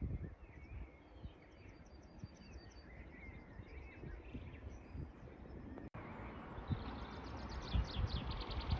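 Small songbirds singing in quick repeated trills, over wind rumbling on the microphone. A brief break about six seconds in, after which the wind noise is louder and a falling trill follows near the end.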